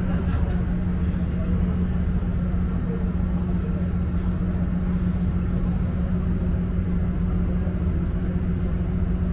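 Ferry's engine running with a steady low drone, heard from the open deck as the boat gets under way.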